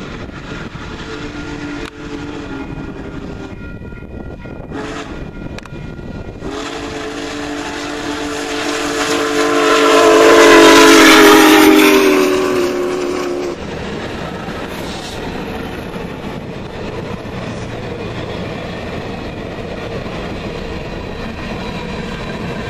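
Union Pacific Big Boy 4014, a 4-8-8-4 articulated steam locomotive, blowing its chime steam whistle: a blast of about three seconds, then a long one of about seven seconds whose pitch sags slightly as the engine passes close and the sound swells to its loudest. The train's cars then roll by steadily with the wheels clacking over the rails.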